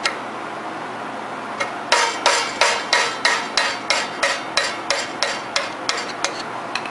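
Hammer striking a screwdriver to drive a stuck key out of the crankshaft keyway of a Briggs & Stratton engine. It is a steady run of sharp metal-on-metal taps, about three a second, starting about a second and a half in.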